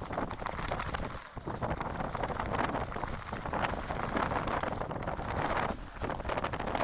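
Strong gusting wind buffeting the camera microphone: a rumbling roar that surges and eases, with brief lulls about a second in and near the end.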